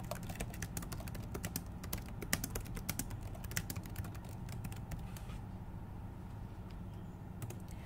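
Typing on a computer keyboard: a rapid run of keystrokes that stops about five seconds in, with a few more keystrokes near the end.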